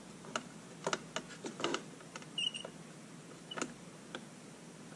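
Scattered light clicks and taps of a plastic solvent-cement bottle and fingers against acrylic panels as cement is run along an inside joint of the box, with one brief squeak near the middle.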